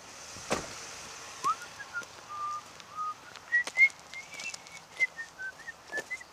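A person whistling a string of short, pure notes, stepping up in pitch about halfway through, with footsteps on gravel and dry leaves as sharp clicks.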